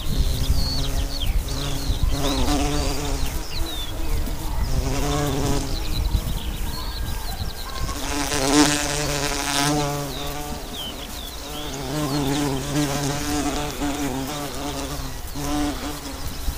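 Bumblebee buzzing in flight, its hum wavering in pitch and swelling loudest about eight to nine seconds in as it passes close.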